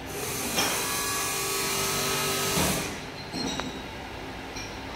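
Steady mechanical noise of a workshop machine running, with a few faint steady tones, that drops away about two and a half seconds in, followed by a few faint clicks.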